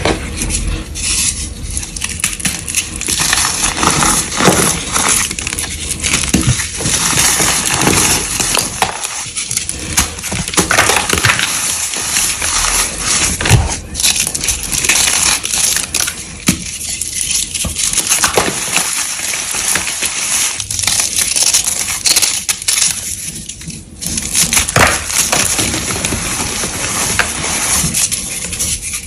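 Blocks of gym chalk being crushed and crumbling, a dense run of crunchy crackling with many small crisp clicks, easing off briefly a few times.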